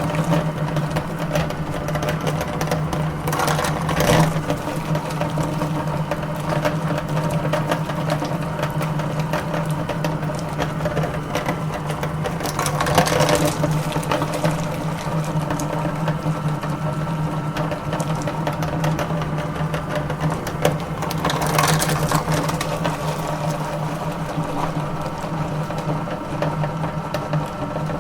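Electric meat grinder running steadily while grinding candy, its motor giving a constant hum, with three short louder rough stretches as the candy goes through.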